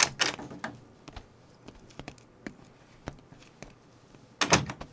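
Footsteps of hard shoes on a wooden parquet floor, a string of light irregular clicks about two a second, then a brief louder rustling thump near the end.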